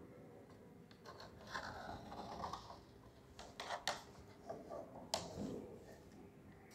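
Faint handling noises: soft scraping, then a few short sharp clicks about halfway through and another about five seconds in.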